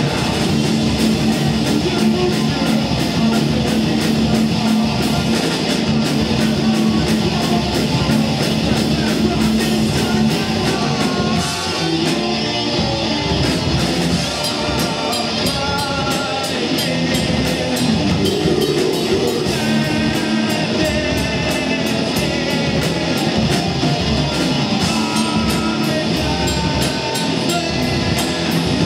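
A heavy metal band playing live, with electric guitars and a drum kit.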